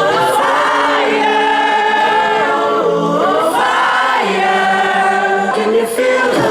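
A song with layered, choir-like voices singing long held notes that glide between pitches.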